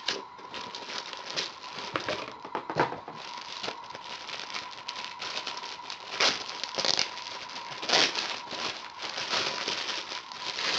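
Clear plastic wrapping crinkling and rustling as a plastic-wrapped goggle case is pulled from its cardboard box and handled, with louder crinkles about six to eight seconds in.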